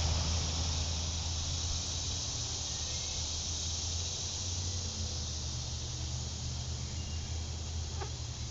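Steady outdoor background: a high even hiss of insects over a low steady hum, with one faint tick near the end.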